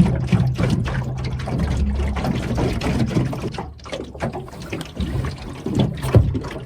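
Water splashing and trickling around a small boat, with a low steady hum that stops a little over two seconds in.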